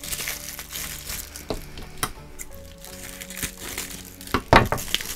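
Plastic mailing bag crinkling and rustling as it is cut and pulled open by hand, with a cluster of sharp crackles about four and a half seconds in.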